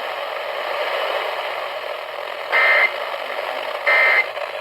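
Weather radio hiss, then, about two and a half seconds in, two short, identical high-pitched warbling data bursts a little over a second apart: the EAS/SAME end-of-message tones that close the spoken flash flood warning.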